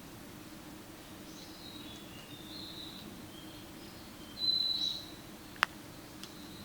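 Juvenile blue-and-white flycatcher calling: a series of short, high calls, the loudest a little past the middle. A single sharp click sounds near the end, over a steady low hum.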